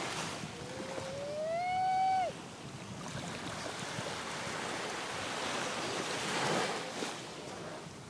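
Small waves washing onto a sandy beach, swelling and falling back. About half a second in, a single loud pitched call lasting nearly two seconds rises in pitch and stops abruptly.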